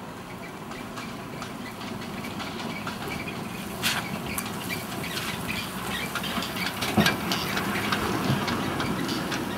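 Derby Corporation double-decker trolleybus approaching and passing close by: the quiet running of the electric vehicle and its tyres, growing louder, with sharp clicks about four and seven seconds in.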